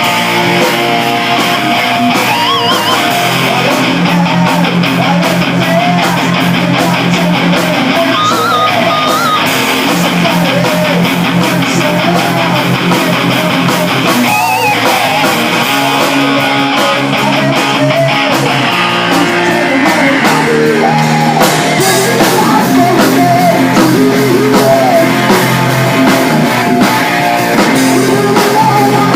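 Live electric rock band jamming: distorted electric guitars with a lead line bending and sustaining notes, over bass and drums.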